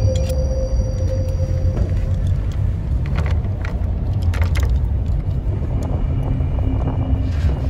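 Steady low rumble with a few short metallic clicks from a fall-arrest lanyard's steel snap hook being handled, most of them about halfway through.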